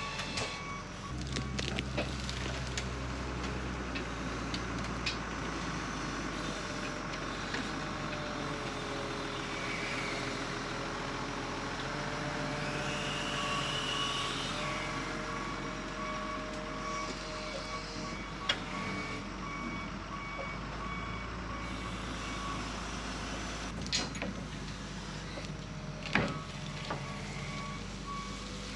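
Wheel loader's diesel engine running under load, its pitch rising and falling as it works, with its reversing alarm beeping steadily while it drags a rusted old truck chassis. A few sharp metal clanks, the loudest about three quarters of the way through.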